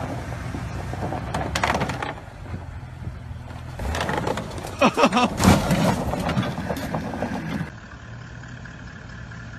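Jeep Wrangler's engine running and revving as it climbs onto a concrete barrier block, with sharp knocks against the concrete. Near the end the sound cuts abruptly to a quieter, steady engine.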